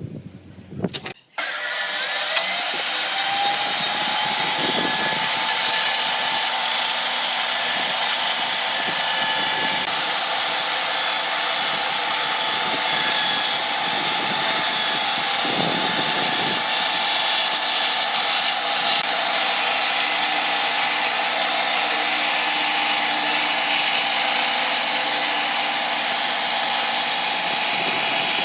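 Electric woodworking power tool switched on about a second in, its motor whine rising as it spins up, then running steadily at full speed.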